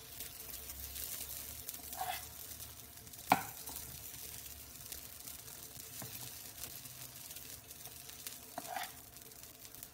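Dosa batter sizzling softly in a hot appe (paniyaram) pan as more batter is spooned over the top, with a sharp clink of the utensils about three seconds in and two short squeaky scrapes, one about two seconds in and one near the end.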